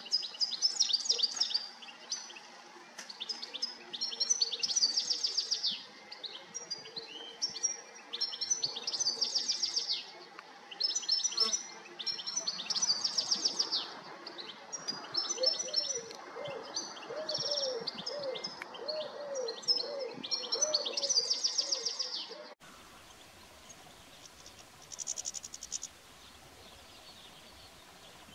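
European goldfinch singing: bursts of fast, high, tinkling twitter a second or two long, repeated with short pauses. About three-quarters of the way through the song stops abruptly, leaving quieter background and one brief call a few seconds later.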